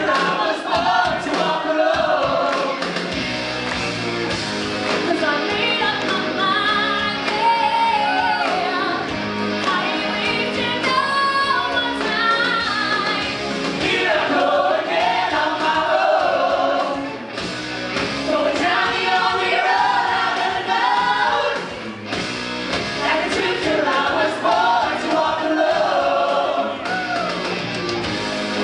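Live pop-rock song sung by an ensemble of singers into handheld microphones over instrumental backing, played through the stage sound system.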